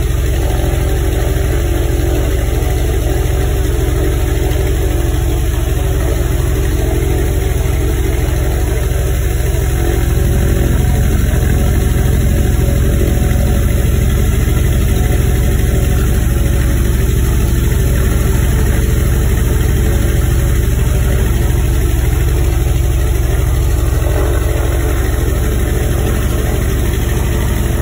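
Wright R-2600 fourteen-cylinder radial engine of a B-25 Mitchell running steadily on its first run after a complete overhaul, heard from inside the cockpit. It grows slightly louder about ten seconds in.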